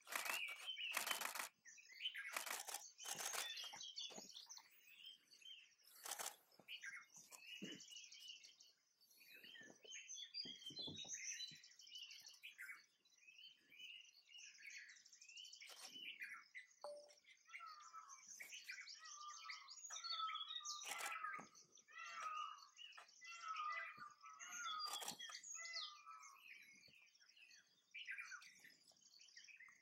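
Wild birds chirping and calling continuously in dry forest, many overlapping short chirps and trills, with a run of repeated mid-pitched calls in the second half. Several sharp clicks stand out in the first few seconds, with a few more later.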